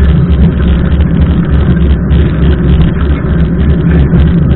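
Loud, steady wind buffeting the microphone of a camera mounted on a mountain bike that is riding at speed in heavy rain: a deep rumble with a choppy hiss above it.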